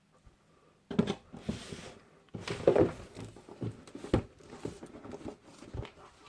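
Packaging being handled during an unboxing: rustling with irregular knocks and clicks, starting about a second in.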